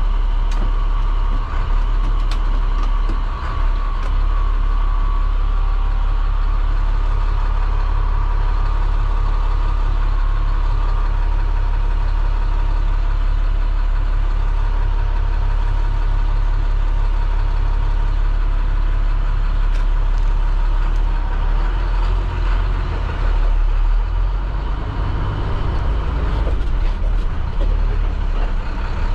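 MaxxForce DT inline-six diesel of an IC CE school bus idling steadily, heard from the driver's seat. A faint steady whine sits over it for about the first ten seconds. In the last several seconds the engine sound turns less even as the bus starts to move off.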